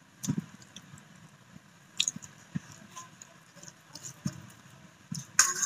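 Fingers mixing cooked rice and chicken curry on a metal plate: soft, scattered squishes and light taps, with a louder brief sound near the end.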